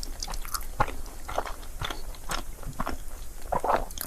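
Close-miked chewing and biting of crepe: a run of short, wet mouth clicks and soft crunches, loudest near the end.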